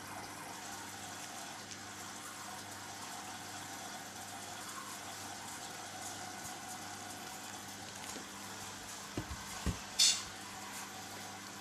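Hoover Dynamic 8 Pulse washing machine in the rinse of a wool wash, with a steady hiss of water running in the machine. Near the end come a few low thumps and then a short, sharp hiss.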